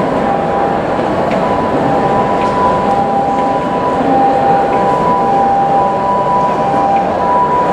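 Two-tone hi-lo electronic siren of a Japanese ambulance, alternating between a higher and a lower tone, half buried under a dense steady wash of crowd and traffic noise.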